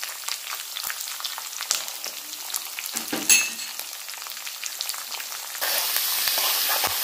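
Tempering spices (mustard seeds, dals, garlic, green chillies, curry leaves and dry red chillies) sizzling and crackling in hot oil in a kadai, with a single metal clink about three seconds in. Near the end the sizzle turns into a louder, steady hiss.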